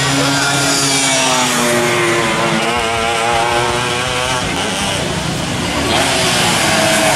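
Two-stroke 125cc underbone racing motorcycles running at high revs as several come past one after another, the engine pitch sliding down, then rising and wavering about midway, with another bike's note coming in near the end.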